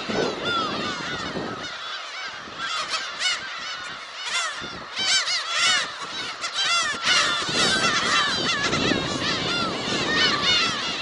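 A large flock of black-tailed gulls calling overhead: a dense chorus of many overlapping cat-like mewing calls, each a short arched note, with no let-up.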